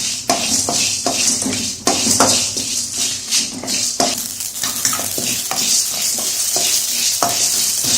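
Whole spices (coriander seeds, dried red chillies, fennel, peppercorns, cloves) dry-roasting in a hot, oil-free kadai and stirred with a spatula: a steady crackling hiss with a scrape against the pan about every half second.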